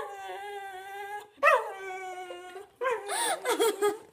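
Whippet howling: two long howls, each rising sharply and then held at one pitch for over a second, then a wavering, up-and-down warble near the end.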